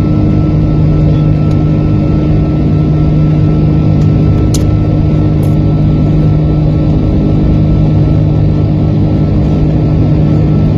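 Steady cabin noise inside an airliner on descent: a continuous engine drone and airflow rush, with a low hum and a thin steady whine running through it.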